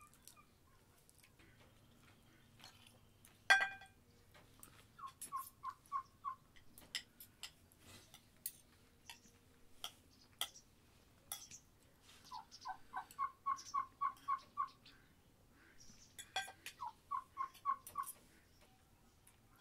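A bird calling in three quick runs of five to eight even, repeated notes, over scattered light clicks and clinks, the sharpest about three and a half seconds in.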